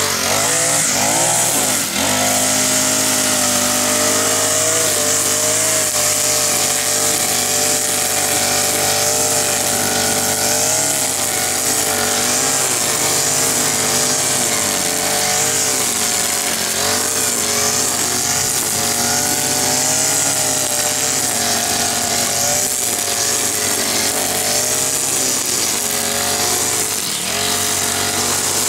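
Husqvarna 324L four-stroke string trimmer revving up, then running steadily under load as its line cuts grass, the engine pitch wavering slightly as it works.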